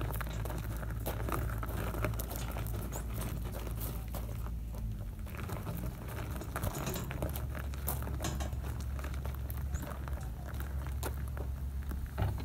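Hand truck wheels rolling over gravel and work boots crunching on it, a dense crackle of small clicks, over a steady low rumble.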